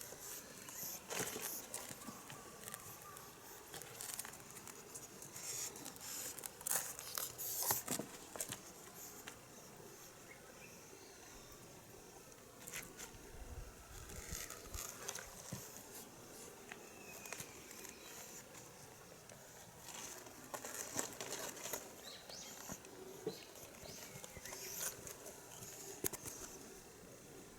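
Kittens playing with a toy: a light patter of paws, scuffling and rustling, with scattered sharp taps and clicks that come in flurries.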